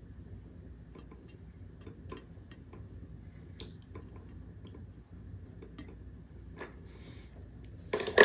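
Faint, scattered small ticks while a soldering iron heats solder into a twisted splice of heavy copper wire, then one loud knock near the end as the iron is put down.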